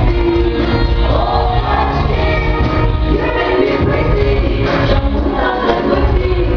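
Live pop performance: a woman singing into a microphone over loud band or backing music with a heavy bass.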